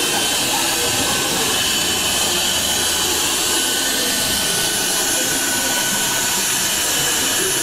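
Suction-cup prize vending machine's vacuum pump running with a steady, loud hiss while its suction head holds a bag of candy and carries it to the prize chute.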